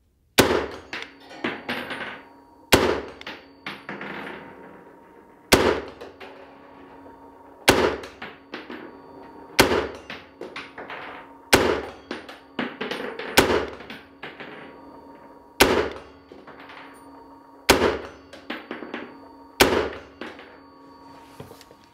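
M14 rifle, chambered in 7.62×51mm NATO, fired semi-automatically about ten times at a steady pace of roughly one shot every two seconds. Each shot rings and echoes off briefly.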